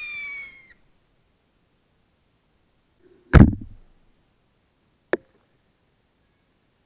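A screaming rocket's whistle falling in pitch, ending about half a second in. Then a ball shell bursts with a loud bang about three seconds in, followed by a short sharp crack about two seconds later.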